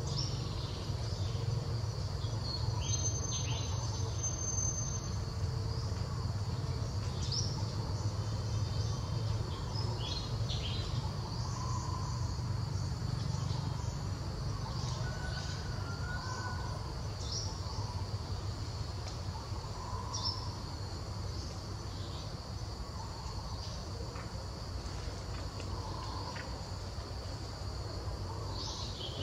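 Steady high insect drone, the chirring of crickets or cicadas, over a low rumble, with short chirps and calls now and then.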